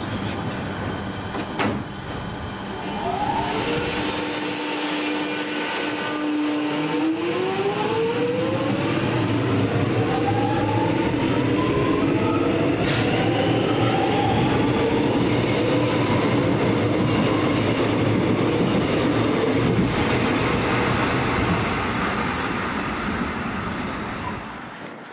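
Metro Trains Melbourne X'Trapolis electric train pulling out of the platform and accelerating. Its motors give a steady whine that begins rising in pitch a few seconds in, over building wheel and rail rumble.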